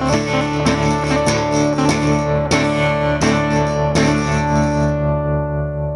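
Blues guitar playing: a run of plucked chords struck roughly every half second to second, then the last chord is left ringing and slowly fading from about five seconds in.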